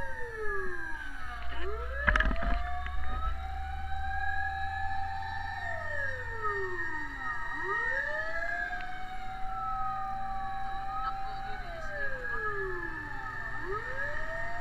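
Several fire truck sirens wailing over one another. Each slowly rises, holds its pitch for a few seconds, then falls away, about every six seconds. A low engine rumble lies under them for the first half, with one sharp knock about two seconds in.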